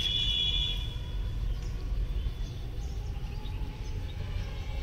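Steady low outdoor rumble with a few faint high chirps.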